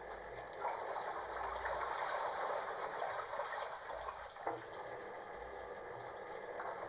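Water gushing into a washing machine, a steady rushing that grows louder about half a second in and eases back a little past the middle.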